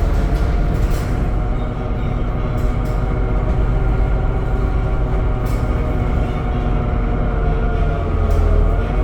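Temsa Avenue LF 12 city bus driving, heard on board: its DAF diesel engine and ZF automatic transmission give a steady whine of several tones over a low rumble, with the pitch sagging slightly near the end.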